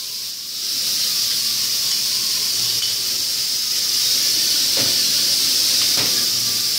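A steady high-pitched hiss of shop noise, with a few light metallic clicks about five and six seconds in as locking C-clamps are set on a long steel strip.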